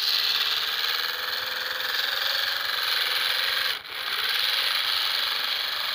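Small electric motor fitted in a homemade toy tractor running under load, hauling a heavily loaded trolley. It starts suddenly, runs steadily with a faint wavering tone, and dips briefly a little before four seconds in.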